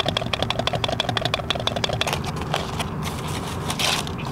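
Wire whisk beating in a ceramic mixing bowl: a fast, even clicking against the bowl's side while olive oil is drizzled in to emulsify the aioli. Near the end comes a brief crinkle of aluminium foil.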